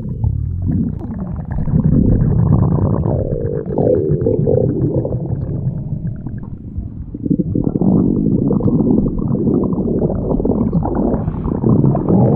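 Stomach growling: a long, continuous low gurgling rumble that shifts in character about seven seconds in.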